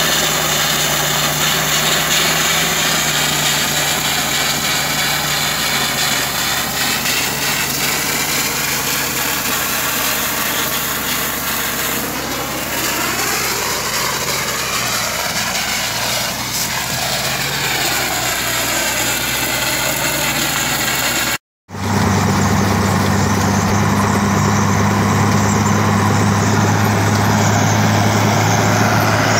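Gunite spray nozzle hissing as it blasts cement mortar onto steel mesh around a pipe, over an engine running steadily. About 21 seconds in it cuts off for a moment, and a different, heavier engine takes over, running at an even, lower pitch.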